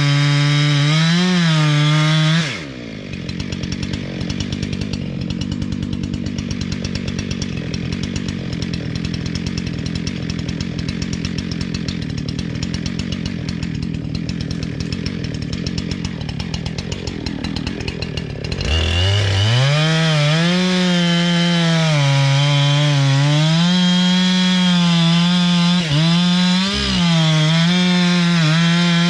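Chainsaw at full throttle cutting into wood, its pitch wavering under load. About two and a half seconds in it drops to idle for roughly sixteen seconds, then revs back up and cuts again.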